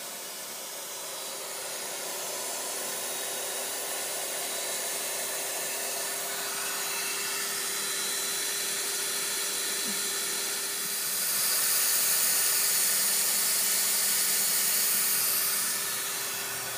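The 10 horsepower spindle of a MultiCam 3000 Series CNC router running steadily, a smooth whir and hiss with a steady hum under it. The hiss grows louder from about 11 to 16 seconds in, then eases. It is quiet and stable, which is taken as the sign of a spindle in great condition.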